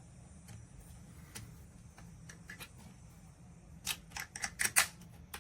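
A series of sharp clicks and taps: a few faint ones, then a quick cluster of louder clicks near the end.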